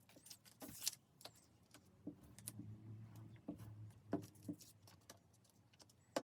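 Scattered light clicks, taps and brief rustles of small objects being handled, over a faint low hum, with the sharpest tap near the end.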